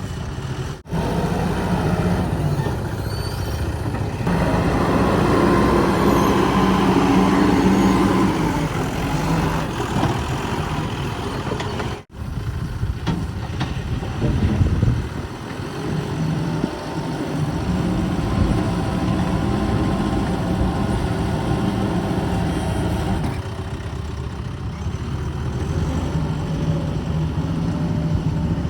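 Heavy diesel engines of backhoe loaders and trucks running, the engine note rising and falling with the load. The sound cuts out for an instant twice, about a second in and about twelve seconds in.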